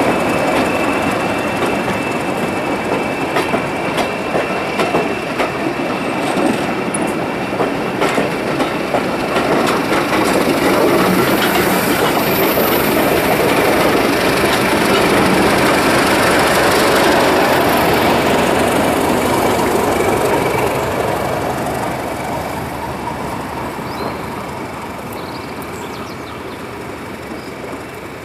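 Diesel-hauled passenger coaches rolling slowly past, their wheels clicking over rail joints with a thin squeal. It grows loudest around the middle as the locomotive goes by, then fades steadily as the train draws away.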